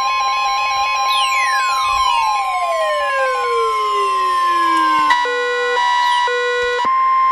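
NOAA Weather Radio warning alarm tone, the single steady high 1050 Hz tone that comes before a warning, here a severe thunderstorm warning. Over it, several tones glide steadily downward from about a second in, and short stepped beeps come on and off near the end.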